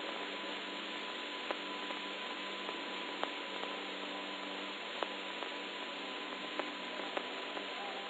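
Background hiss and steady hum of an old 1963 recording, with a few scattered clicks.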